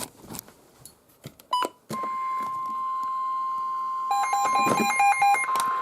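Weather radio sounding the NOAA Weather Radio 1050 Hz warning alarm tone, the steady single-pitched tone that comes before a warning message. It starts about two seconds in, after some clicks and a short beep. A quick run of higher and lower beeps sounds over it for about a second near the end.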